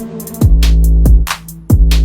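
Electronic dance music with a heavy bass line, kick drums that drop sharply in pitch, and crisp hi-hats in a steady beat.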